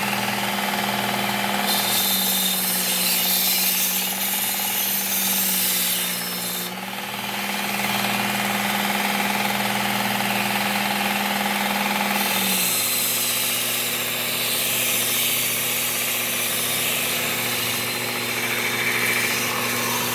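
Work Sharp Ken Onion Elite belt sharpener's motor running steadily while a steel mower blade edge is ground on the abrasive belt in two long passes, about 2 seconds in and again from about 12 seconds in. The motor's hum drops in pitch under the load of each grinding pass.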